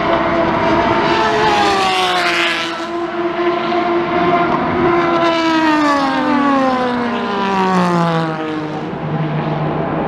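Endurance race cars passing at speed, one after another. Each engine note falls in pitch as the car goes by, with the longest fall about halfway through.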